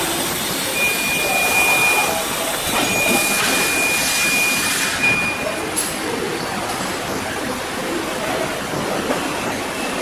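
Automatic paint-roller capping machine running: a steady mechanical noise from the chain conveyor line, with a few small clicks. A high, steady tone sounds three times in the first six seconds.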